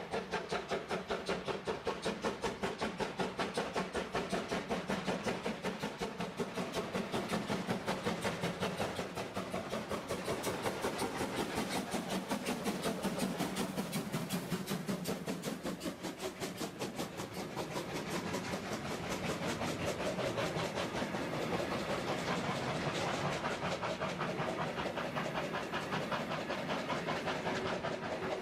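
Steam locomotive passing close by, its exhaust beating in a rapid, even rhythm with hissing steam. In the second half the coaches' wheels clatter over the rail joints as the train rolls past.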